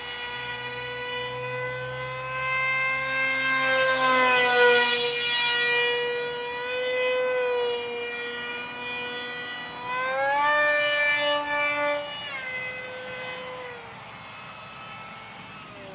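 SU-47 Berkut R/C park jet's electric motor and propeller whining at a steady pitch, then rising in pitch and getting louder about ten seconds in as the throttle is opened. Near the end the pitch drops and the sound fades as it is throttled back.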